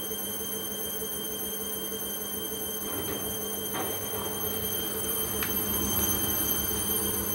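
Hisense front-loading washing machine running its spin cycle: a steady hum with a high whine, a few faint clicks about three to five and a half seconds in, growing a little louder toward the end.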